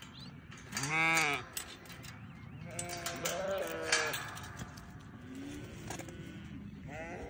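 Goat bleating: a loud call about a second in, then a longer, wavering bleat around three seconds in, with shorter, quieter calls later.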